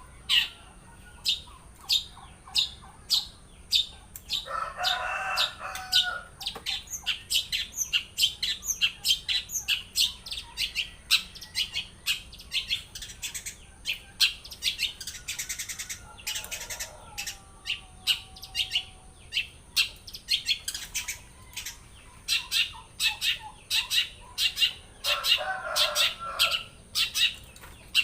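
Long-tailed shrike (cendet) singing nonstop in a fast string of sharp, high chips and whistles, running through its mimicked song repertoire. A lower, harsher call breaks in twice, about five seconds in and again near the end.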